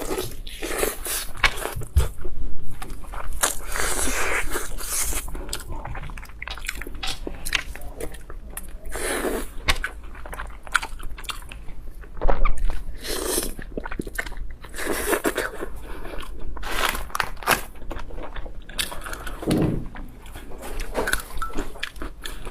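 Close-miked mukbang eating: a person biting and chewing crunchy food, with many sharp, irregular crunches throughout.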